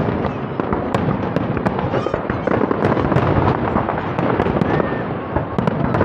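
Aerial firework shells bursting in quick succession: a dense, unbroken barrage of bangs and crackling, with sharp reports all the way through.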